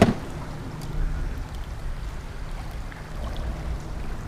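Water sloshing and lapping around a small fishing boat, with a sharp knock right at the start and a low rumble of wind on the microphone from about a second in.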